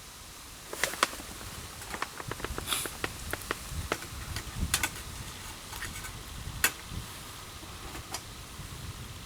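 Wood campfire crackling and popping: irregular sharp snaps over a steady hiss, starting about a second in, with the loudest pops near the start and again past the middle.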